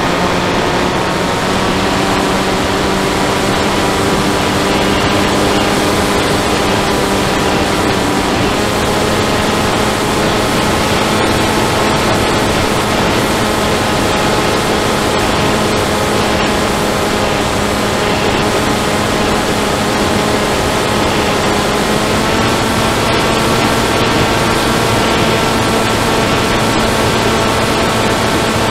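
Electric motor and propeller of an FPV model aircraft, heard through its onboard camera as a steady whine over rushing wind noise. The whine steps up slightly in pitch about a third of the way through and again about three quarters of the way through, as the throttle changes.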